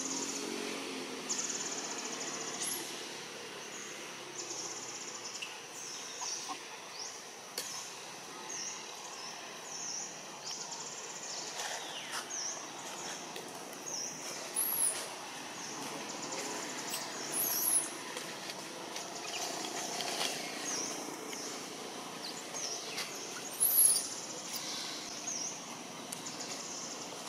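Outdoor forest ambience: a high buzzing that comes and goes in short repeated pulses, with a few sharp high bird chirps standing out over it, the last of them near the end.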